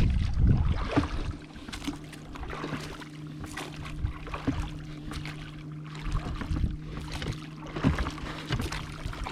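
Small folding boat under way on a lake: water splashing and short knocks from paddling against the hull, with a steady low hum under them from about a second and a half in. A low rumble of wind on the microphone in the first second.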